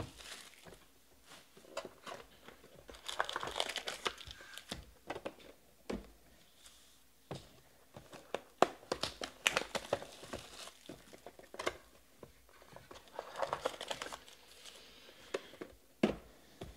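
Wrapped trading-card packs crinkling in bursts as they are pulled out of their cardboard hobby boxes and stacked, with a few sharp knocks as boxes and packs are set down on the table.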